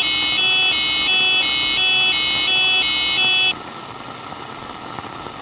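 Electronic emergency alert tone, a harsh tone switching back and forth between two pitches. It cuts off suddenly about three and a half seconds in, leaving a steady hiss.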